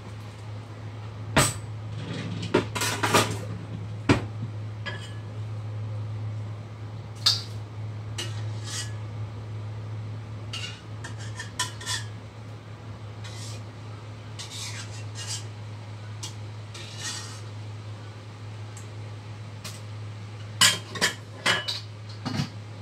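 Metal cookware and utensils clanking and clinking: a sharp clank about a second and a half in, a few more around three and four seconds, scattered lighter clinks, and a quick run of clanks near the end, over a steady low hum.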